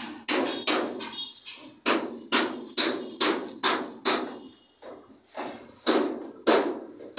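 Repeated sharp knocks, about two a second, each fading quickly.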